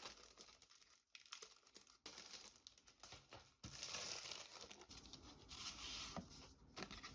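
Faint crinkling and rustling of packaging being handled and unwrapped, in short bursts at first, then a longer unbroken stretch from about three and a half seconds in.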